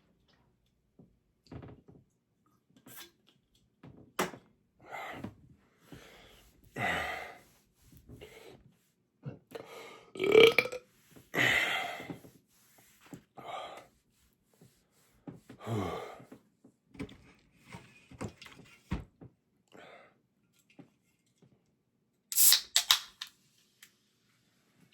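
A man belching over and over, about a dozen burps of varying length with short gaps between them, the loudest about ten seconds in. The burps come from a stomach bloated with fast-chugged soda and pizza, letting out the gas pressure. A short hissy burst comes near the end.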